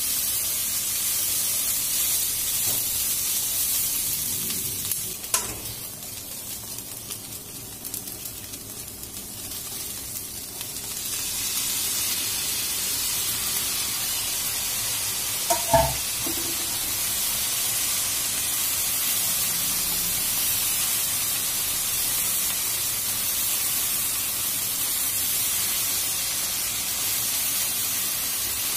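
Stir-fry of beef, chicken, carrot and instant noodles sizzling in a frying pan as it is turned with tongs, with broccoli stirred in later. The sizzle dies down for several seconds about five seconds in, then comes back at full strength. Two sharp clacks, one about five seconds in and one just past halfway, stand out as the loudest moments.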